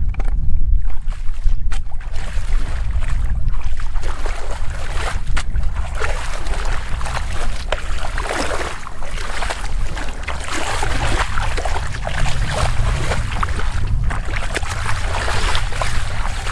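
Shallow muddy water splashing and sloshing irregularly as a person wades through it and gropes in the mud by hand, over a steady low rumble of wind buffeting the microphone.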